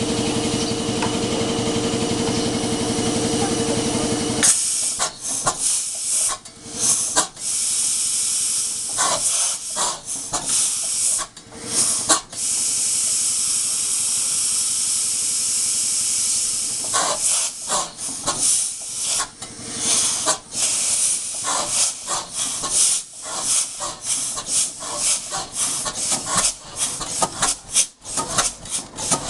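Compressed air hissing from the 1927 Atlas three-cylinder diesel's air-start system as it is worked for starting. It runs as long steady blasts and then as rapid broken puffs, with vapour spraying from the top of the engine, after a few seconds of the engine's low rhythmic running.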